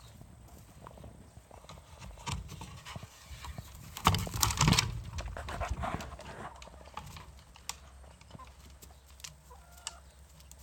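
Hens moving about and pecking: scattered taps and clicks, with a louder scuffling flurry about four seconds in.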